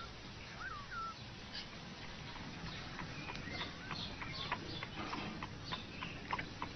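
Faint, short chirping calls: a few curved chirps in the first second, then a quick irregular run of light chirps and ticks.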